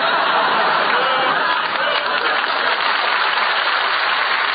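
Studio audience applauding and laughing.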